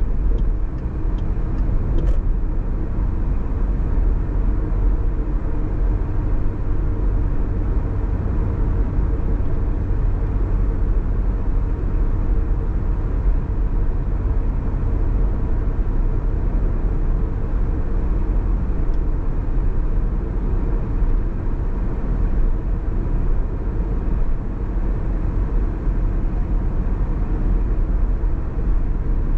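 A car driving steadily, its tyre and engine noise making a constant low rumble, with a few faint ticks about two seconds in.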